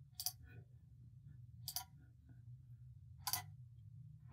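Computer mouse clicking three times, about a second and a half apart, over a low steady hum.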